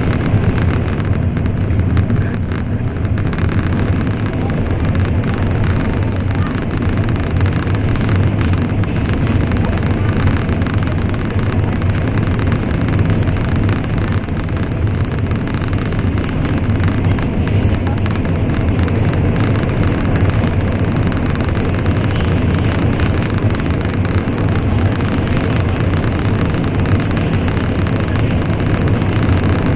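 Steady running noise of an N700 series Shinkansen at speed, heard inside the passenger cabin: a constant low rumble of wheels, track and air with no breaks.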